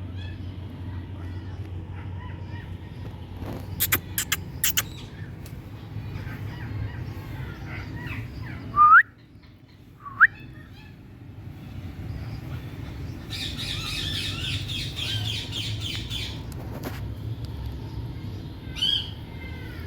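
Indian ringneck parrot squawking: two loud, sharp rising calls about nine and ten seconds in, a stretch of rapid chatter a few seconds later and another call near the end, with a few clicks and a steady low hum behind.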